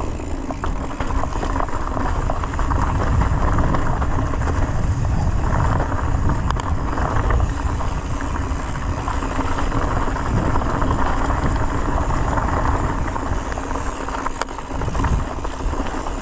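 Mountain bike rolling down a dirt singletrack covered in leaves: a steady rumble of tyres on dirt and leaves and the bike rattling over the bumps.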